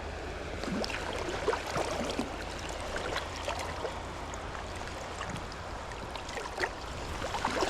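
Creek water running steadily, with scattered small splashes.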